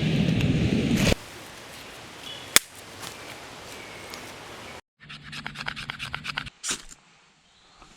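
Scraping and rubbing from hand work, heard in short edited snatches with abrupt cuts between them. There is a sharp click about two and a half seconds in and a quick run of scrapes after a brief gap near the middle.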